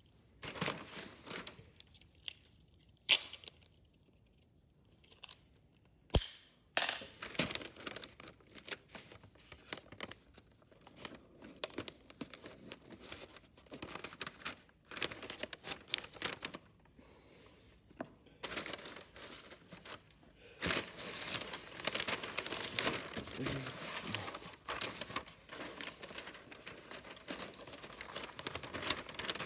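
Wrapping paper being handled around a gift box, rustling and crinkling in fits and starts, with a sharp snap about three seconds in and another about six seconds in. In the last third the crinkling becomes dense and continuous as the paper is pressed and folded.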